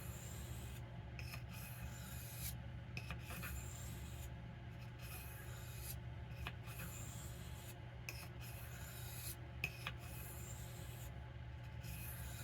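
Pocketknife blade stroked across a soft Arkansas whetstone: a soft scraping hiss in even strokes about every one and a half to two seconds, with short pauses between strokes.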